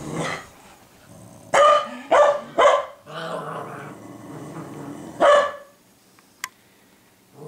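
Two dogs barking and growling at each other: one bark at the start, three quick sharp barks between about one and a half and three seconds in, a low growl, then a last bark a little past five seconds in.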